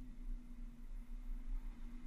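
Muffled, steady low drone of a Jeep Wrangler JK's engine at a slow crawl, with a deep rumble underneath.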